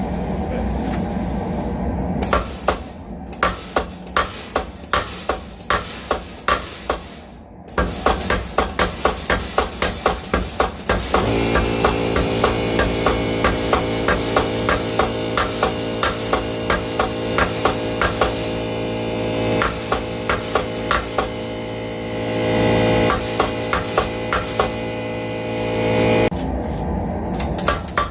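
Home-built Bulldog 15 mechanical power hammer forging a railroad spike: runs of rapid, evenly spaced blows, about two to four a second, faster from about eight seconds in. From about eleven seconds in a steady machine hum runs under the blows until near the end.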